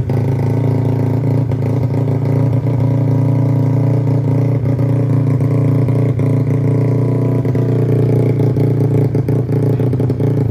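Modified Honda Nice 125 underbone motorcycle with a 250cc four-valve engine and loud aftermarket exhaust, running loud and steady at a held engine speed.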